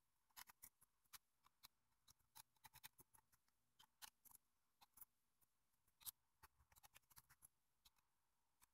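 Faint, irregular clicks of a small hand screwdriver turning out the tiny 4 mm coarse-thread screws that hold the metal shield plate on a Nikon Coolpix L820 camera, the strongest click about six seconds in.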